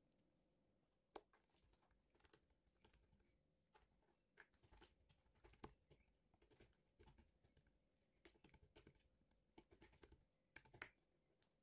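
Faint, irregular light taps and clicks of food being prepared by hand with kitchen utensils, with a few sharper clicks scattered among them.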